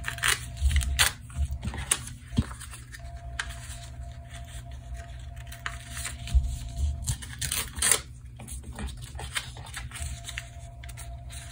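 Paper tearing and crinkling in short, irregular rips: foundation paper being pulled away from the stitched seams of a paper-pieced quilt block.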